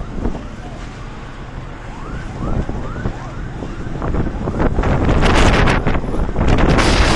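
Strong wind buffeting the microphone, with heavier gusts in the second half. About two seconds in, a quick run of about six short rising chirps sounds through the wind.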